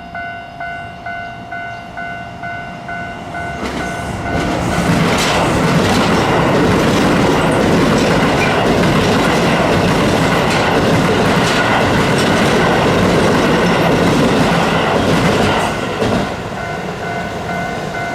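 Japanese level-crossing warning bell ringing in a steady repeating ding. A Keio Line train then runs through the crossing for about twelve seconds, loud enough to cover the bell. The bell is heard again near the end.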